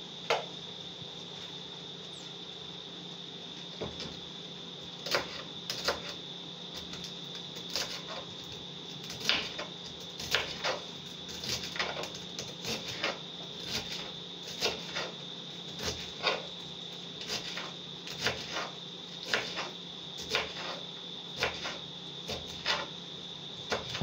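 Kitchen knife cutting green vegetables against a wooden cutting board: irregular knocks, about one or two a second, picking up about four seconds in. Under them runs a steady high-pitched tone.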